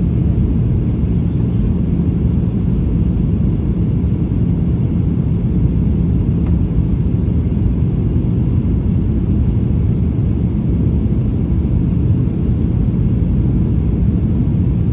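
Steady low cabin noise of an airliner in descending flight, heard inside the passenger cabin: the drone of engines and rushing air, with a faint steady hum running under it.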